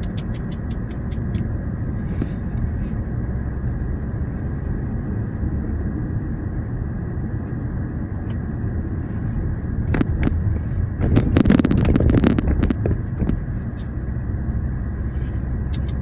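Car cabin noise while driving along a road: a steady low rumble of engine and tyres, with a brief louder burst of noise about two-thirds of the way through.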